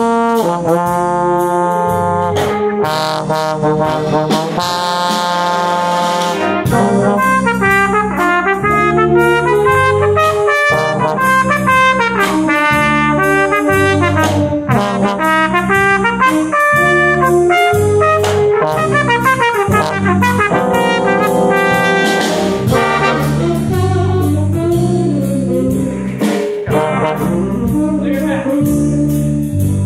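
Jazz band playing, with trombone close to the microphone and trumpets in the brass section, over a steady beat.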